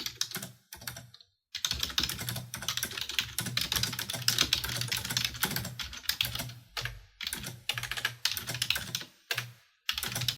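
Typing on a computer keyboard: a fast, continuous run of key clicks, broken by a brief pause about a second in and a few shorter ones near the end, then stopping abruptly.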